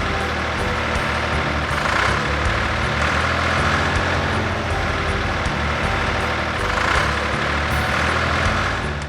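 Truck engine sound effect running steadily and loudly, swelling slightly every couple of seconds.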